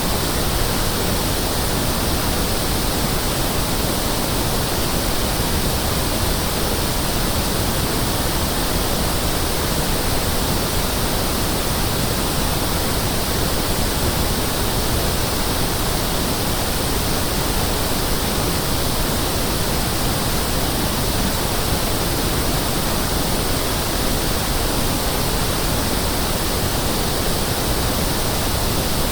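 Pink noise test signal: a steady hiss that covers everything from deep rumble to high treble at one even level, with no change throughout.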